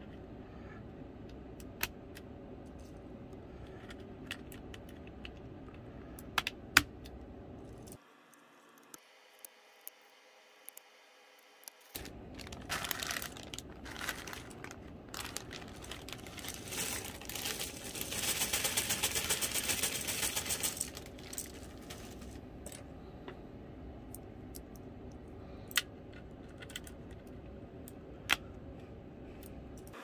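Scattered sharp plastic clicks and taps as low-profile optical switches are pushed into a Keychron K3 keyboard's hot-swap sockets. Roughly two-thirds of the way through comes a few seconds of rattling rustle from a hand digging through a plastic bag of loose switches.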